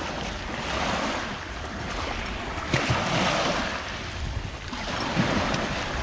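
Small sea waves breaking and washing up over a pebble beach, the surf swelling and fading in surges, with some wind rumble on the microphone.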